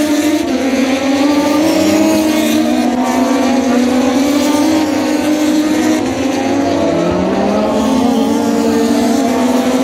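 Several racing motorcycle engines revving hard and passing. Overlapping engine notes rise and fall in pitch as the bikes accelerate, shift and brake through the corners.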